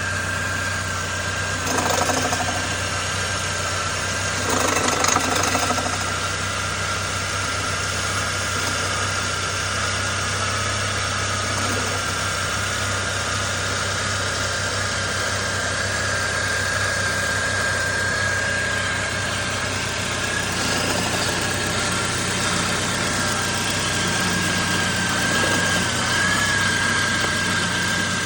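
2000 Saab 9-3 SE engine idling, with a steady high-pitched whine sitting over the engine hum. The pulleys, belt and alternator have all been replaced recently, so the whine is not from those new parts. There are two brief louder noisy spells, about two and five seconds in.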